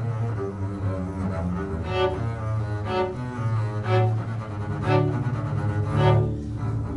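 Viola and double bass playing a classical duet live. The double bass holds low notes while the viola plays accented notes about once a second.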